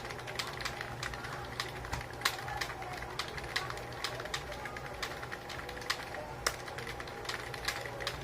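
Fast typing on a computer keyboard: a quick, uneven run of key clicks over a faint steady hum.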